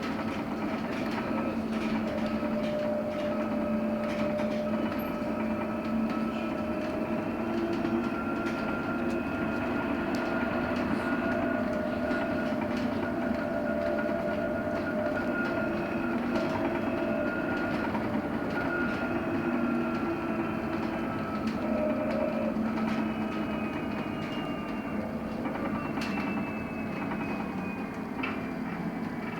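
Electric bus under way, heard from inside the cabin: the traction motor and its drive whine in several steady tones over road and tyre noise, with light rattles. Near the end the whine drops in pitch as the bus slows.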